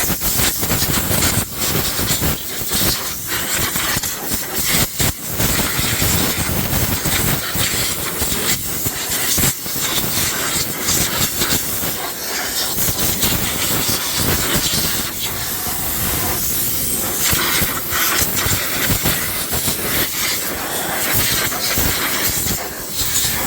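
Compressed air hissing loudly from a blow gun as dirt and dust are blown out of an engine bay, in long blasts with brief breaks, cutting off suddenly at the end.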